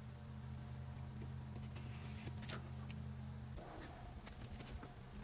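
Faint, scattered light clicks and taps of a craft knife and leather being handled on a cutting mat, over a low steady hum that drops away about three and a half seconds in.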